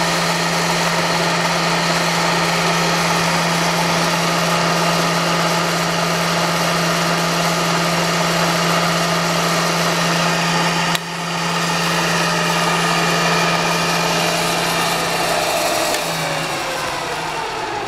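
Bridgeport vertical milling machine running, with a steady motor hum and whine from the motors, including the small power-feed motor that drives the table. About eleven seconds in there is a sharp click and a brief dip. Near the end the pitch falls as the machine winds down.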